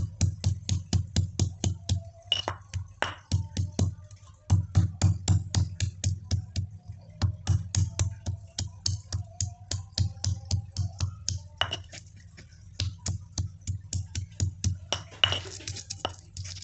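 Pestle (ulekan) pounding and grinding peeled ginger root in a mortar (cobek): a rapid, steady run of knocks, about four or five a second, each a dull thud with a sharp click, broken by a couple of brief pauses.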